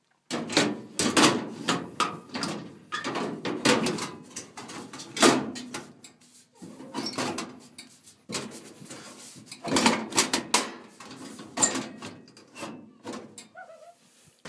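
Sheet-metal access panel of an old Lennox furnace being put back on: a long run of clunks, knocks and scraping as it is handled and fitted into place.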